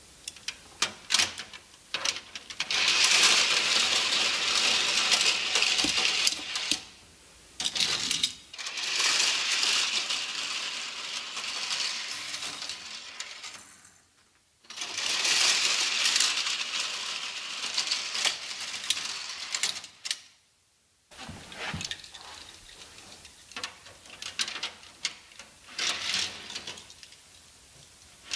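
Die-cast Hot Wheels cars rolling down the plastic ramps of a toy garage playset: three long runs of rattling clatter a few seconds each, with clicks and knocks of cars against the track between them.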